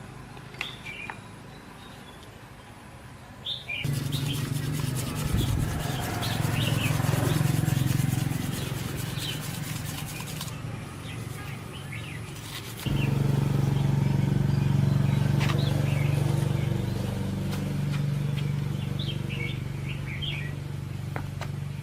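A motor-driven machine running in two spells. From about four seconds a loud run with a dense hissing crackle over a low hum, and from about halfway a steady low hum. Small birds chirp throughout.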